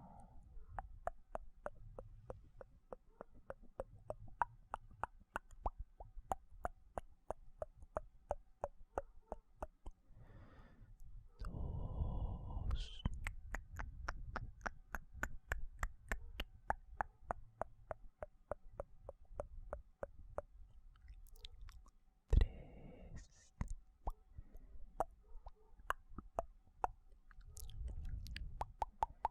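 ASMR mouth sounds close to the microphone: a steady run of wet mouth clicks and pops, several a second, broken two or three times by breathy puffs of air, with one sharper pop about two-thirds of the way through.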